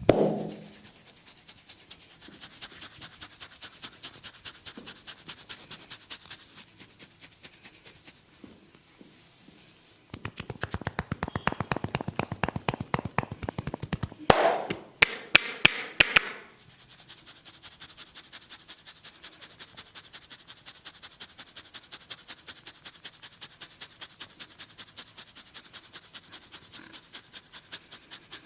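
Hand tapping on a person's head in a head massage: an even patter of light taps at about five a second, with a louder, denser run of tapping in the middle, then a handful of sharp loud smacks, before settling back into light rhythmic taps. A brief dull thump at the very start.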